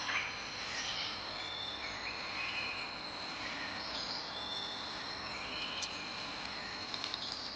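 Tropical forest ambience: a steady high-pitched insect drone, with short bird calls scattered through it and a few faint clicks near the end.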